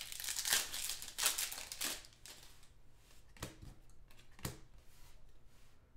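A foil trading-card pack being torn open, its wrapper crinkling for about two seconds. Then two short clicks as the cards are handled.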